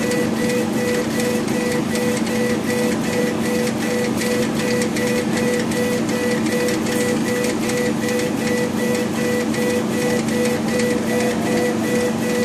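CO2 laser engraving machine at work, its head sweeping back and forth across the stone. The stepper motors whine in a pulse several times a second over a steady hum.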